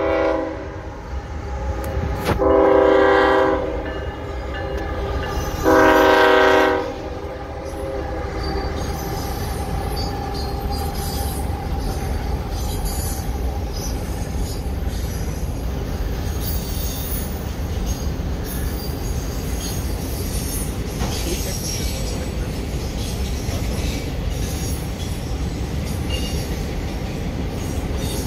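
Freight locomotive horn sounding two blasts, about two and six seconds in. A CSX autorack freight train then rumbles and clatters steadily across a steel girder railroad bridge.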